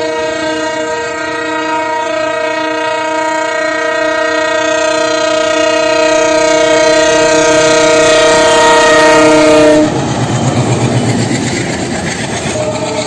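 A locomotive horn sounding one long, sustained blast that grows slightly louder and cuts off suddenly about ten seconds in. Rumbling train and track noise with a fast pulsing follows, and the horn starts again near the end.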